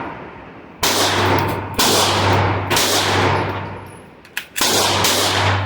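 Tisas PX9 Gen 3 9mm pistol being fired, about five shots at roughly one a second, the last two in quick succession. Each shot is followed by a long echoing tail.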